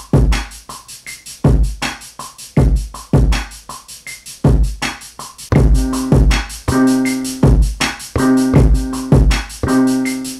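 Hip-hop drum beat from a Maschine Mikro MK3: kick drums and snares under a fast note-repeat hi-hat pattern. A little past halfway, held low pitched notes played on the pads join the beat.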